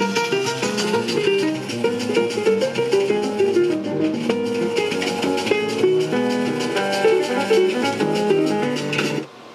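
Music from an FM broadcast playing through the speaker of a Tandberg TP-41 transistor radio. The sound drops away briefly to faint hiss about nine seconds in.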